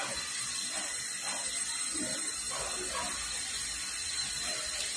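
Steady hiss of tap water running through a garden hose into a bunch of quick-fill water balloons as they fill.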